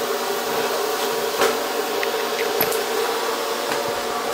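Steady electrical hum of a TIG welding setup, with a few light clicks.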